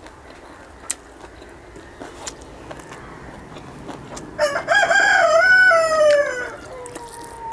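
A rooster crowing once, starting a little past halfway: a long call that wavers, then falls in pitch as it trails off.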